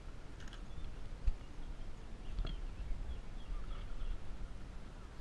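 Outdoor background: a low steady rumble with faint high bird chirps, a soft thump about a second in and a sharp click a little later.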